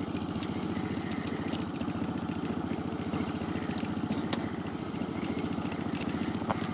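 Outboard motor running steadily at low trolling speed, a fast, even engine beat.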